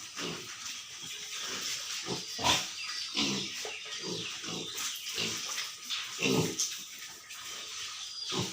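Duroc piglets, about 50 days old, grunting in short, irregular calls, with a few louder squeals among them.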